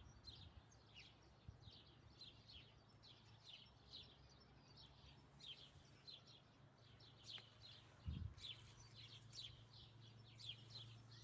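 Faint chirping of small birds, many quick chirps in a row, over a low steady hum, with one dull thump about eight seconds in.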